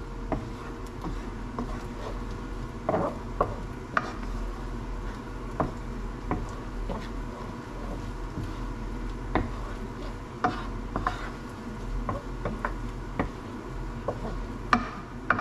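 A wooden spoon stirring and scraping scrambled eggs in a stainless steel pan, with irregular knocks of the spoon against the pan over a faint steady sizzle.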